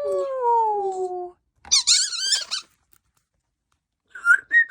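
African grey parrot calling: a long call that falls in pitch, then a harsh squawk about two seconds in, and short high whistles near the end.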